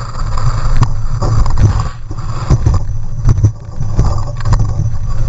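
A car running off the road into rough dirt, heard from a camera mounted on its outside. There is a loud low rumble and wind buffeting on the microphone, with a series of knocks and thumps as the car jolts over the ground.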